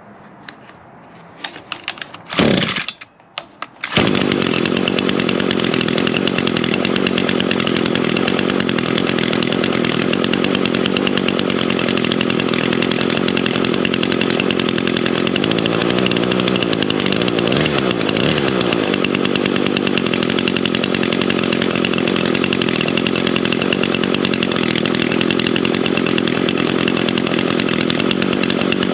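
Echo gas string trimmer's two-stroke engine pull-started, with a few short bursts before it catches about four seconds in, then running steadily. It revs up and back down briefly near the middle.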